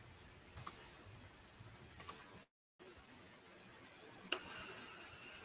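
Sharp computer mouse clicks: a quick pair about half a second in and another pair about two seconds in. A little over four seconds in, a steady hiss comes on suddenly as the presentation's recorded audio starts to play.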